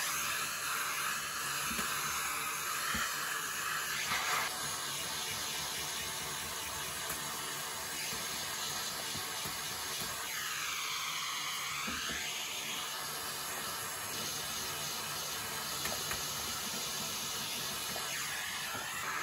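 Vacuum cleaner running, its hose nozzle sucking crumbs and debris out of a dismantled toaster's chassis and element frame: a steady rushing hiss of air. About ten seconds in, the pitch dips and then rises again.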